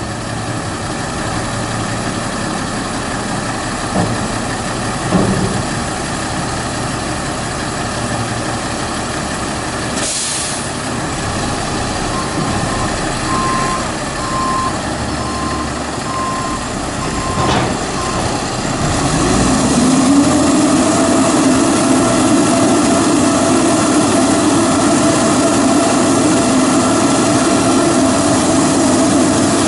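Peterbilt 310 garbage truck's diesel engine running at the curb with the Amrep front-loader arms working. A short hiss of air brakes comes about ten seconds in, then a string of reversing beeps, about one beep a second. About two-thirds of the way through the engine speeds up to a steady, louder run.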